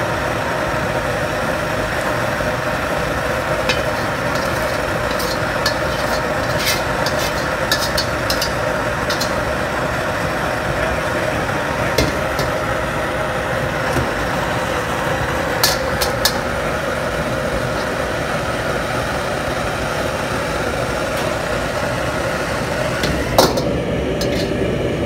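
Steady roar of commercial kitchen equipment, with a metal ladle clinking and scraping against a steel wok and mesh strainer as fried onion and garlic are drained and stirred; one louder metal clank near the end.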